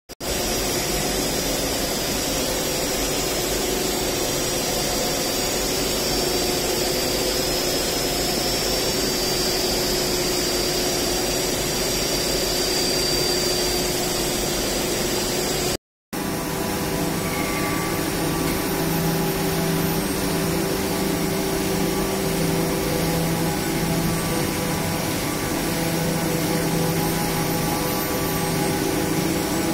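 Steady industrial machine noise of a filament spinning line running, air rushing with several steady whining tones over it. About halfway it cuts out for a moment and comes back with a lower hum added.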